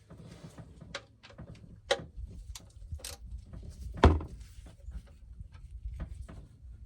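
Irregular clicks and knocks of hand tools against the RV's oil drain cap and pan as it is being worked loose, with one louder knock about four seconds in.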